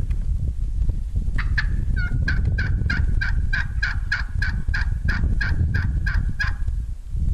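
Wild turkey hen yelping: a long, steady run of about twenty-five rapid, evenly spaced yelps, about five a second, starting a little over a second in and stopping shortly before the end, over a low rumble.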